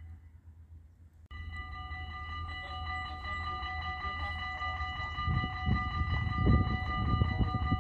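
Level-crossing warning bells ringing steadily, the signal that a train is approaching and the half barriers are about to come down. A quieter ringing from another crossing gives way to a louder one about a second in, and from about five seconds in a strong low rumble grows beneath the ringing.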